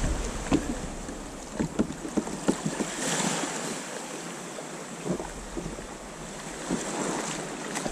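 Water sloshing and scattered small knocks around a plastic sit-on-top fishing kayak at the water's edge, with wind buffeting the microphone.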